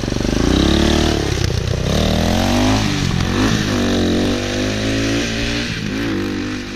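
200 cc dirt bike engine being ridden, its pitch rising and falling again and again as the throttle is opened and closed, then holding steadier near the end.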